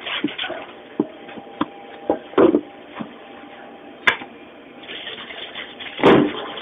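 Irregular knocks and clacks of utensils and food being handled at a work counter, with louder clatters about two and a half seconds in and near the end, over a faint steady machine hum.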